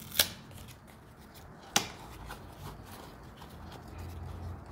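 Packaging being opened by hand: light rustling and handling, with two sharp clicks, one just after the start and a louder one near two seconds in.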